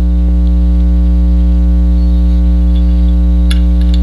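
Loud, steady electrical mains hum in the recording, a low buzz with many evenly spaced overtones. A couple of faint light clicks sound near the end as small pistol parts are handled.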